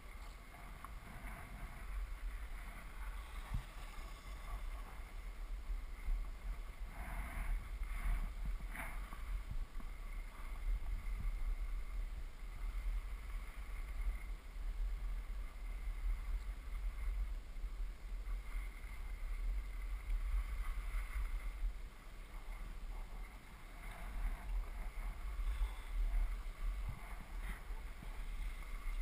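Wind rumbling over a moving camera's microphone as a skier runs down a groomed slope, with skis hissing and scraping on the snow through the turns, a few scrapes louder about a quarter of the way in.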